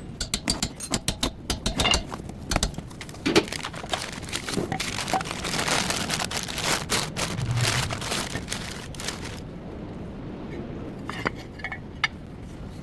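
Metal tools and brake parts clinking and clicking against each other: a rapid, irregular run of sharp metallic strikes for about nine seconds, then a few scattered clicks near the end.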